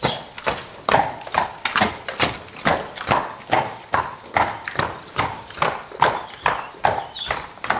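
A horse's hooves striking concrete at a trot: an even run of sharp clip-clop beats, about two a second.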